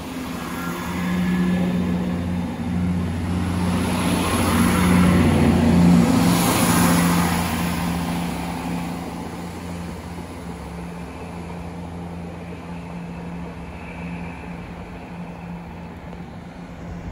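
A vehicle engine running with a steady low hum. It grows louder to a peak about six seconds in, then fades back to a steady, lower level.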